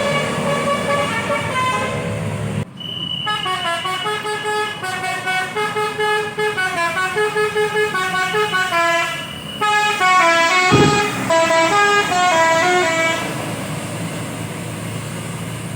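Tour bus's telolet basuri musical horn playing a fast melody of short stepped notes for about ten seconds, starting after a cut about two and a half seconds in. Before and after it, steady engine and traffic noise.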